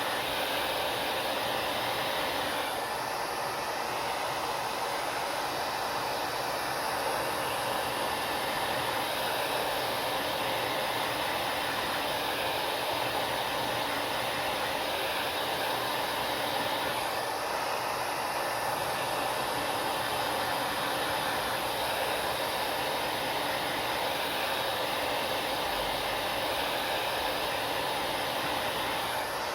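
Hair dryer running steadily, a constant blowing hiss, with small shifts in its higher hiss about three seconds in and again around the middle.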